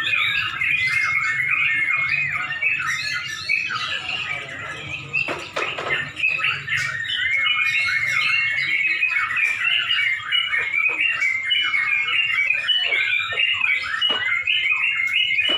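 Several yellow-vented bulbuls (trucukan) singing at once in a dense, unbroken chorus of overlapping bubbly chirps and warbles.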